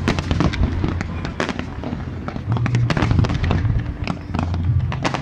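Aerial fireworks bursting: a rapid, irregular run of sharp bangs and crackles over a continuous low rumble.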